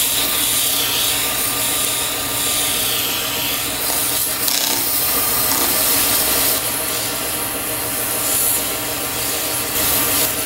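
Sandpaper held by hand against a cocobolo workpiece spinning on a wood lathe: a steady scratchy hiss over the lathe motor's even hum.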